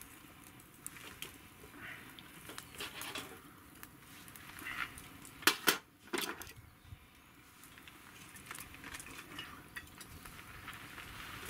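Steel tongs clinking against charcoal and a small metal brazier as the coals are stirred, with light scattered taps throughout. Two sharp metallic clinks a little past the middle are the loudest.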